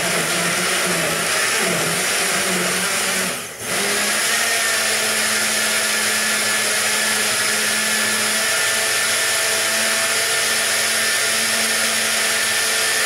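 Countertop jug blender running at full speed, blending a smoothie of strawberries, bananas, ice and water. It cuts out briefly about three and a half seconds in, a pulse of the switch, then runs on steadily.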